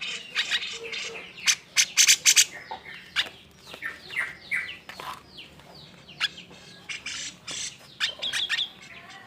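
Cucak jenggot (grey-cheeked bulbul) calling in an agitated, 'emosi' fashion: a rapid run of harsh chattering notes and short gliding whistles, with loud sharp calls around two seconds in and again near the end. This excited call is the kind used to provoke a quiet cucak jenggot into singing.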